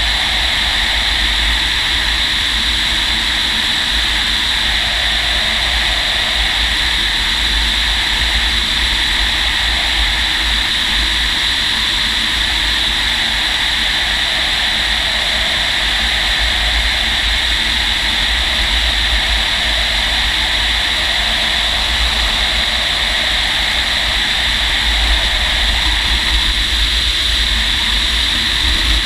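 Steady rush of air around the cockpit of a Fox glider under aerotow, with a low, fluctuating rumble of wind buffeting.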